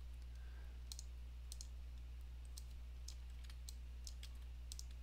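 Faint, irregular computer clicks, about a dozen scattered through, some in quick pairs, over a steady low hum.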